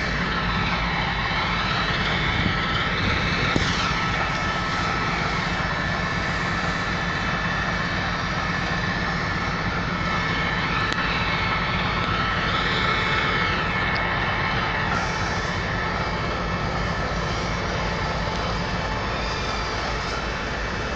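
Steady running noise of a train at a railway station: a continuous rumble with several steady whining tones over it. Twice a higher whine rises and falls, a few seconds in and again about two-thirds of the way through.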